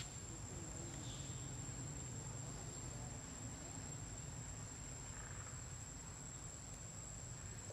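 Steady high-pitched drone of forest insects, one unbroken tone, over a low background rumble.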